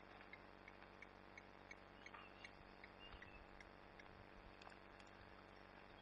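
Near silence: quiet bush ambience with a faint, evenly repeating tick about three times a second, probably a distant bird or insect call, and a few faint chirps.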